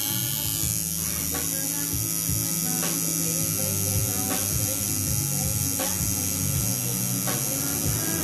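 An electric coil buzzing with a low, electric-shaver-like hum whose pitch steps between a few levels, with faint clicks about once a second over a constant high hiss.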